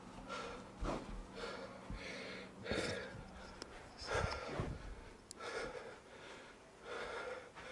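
A man breathing hard and fast, gasping and blowing out air in heavy breaths, out of breath from a strenuous exercise set.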